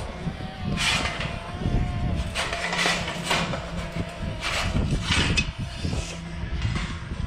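Steel corral gate and panels of a hog trap rattling and scraping as they are handled, in a run of short metallic clanks and rasps, about six in all, over a low rumble.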